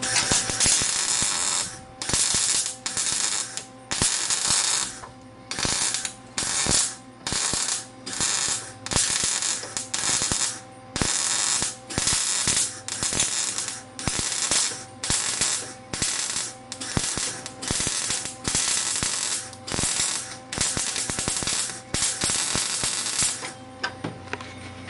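Gas-shielded MIG welder arc crackling in a long series of short stitch welds on rusty steel, each burst under about a second with brief breaks between, stopping near the end. The heat is turned down to keep from burning through the thin metal.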